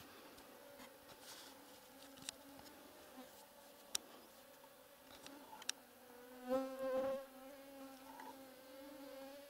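Faint buzzing hum of flying insects close to the microphone, swelling and wavering in pitch for about a second past the middle, with a few light clicks.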